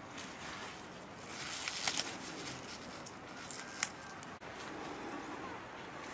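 Leafy green plants being picked by hand: leaves rustling, with a few sharp snaps of stems breaking off, clustered about two seconds in and again near the four-second mark.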